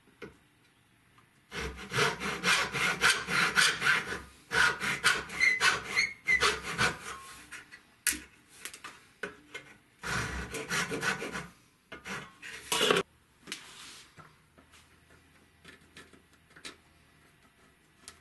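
Fine-toothed backsaw cutting the end of a small hardwood strip held in a vise, to form a tongue, in quick, even rasping strokes. The sawing comes in several spells with short pauses between them and stops about 13 seconds in, leaving only a few faint light knocks.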